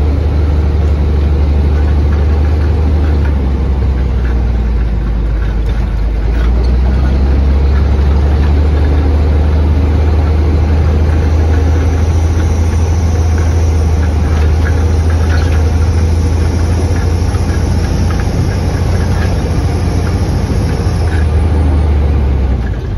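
1997 Volvo truck's diesel engine running steadily as it drives, heard from inside the cab as a loud low drone. The engine note dips briefly about five seconds in and eases off near the end, with a faint high whine for several seconds in the middle.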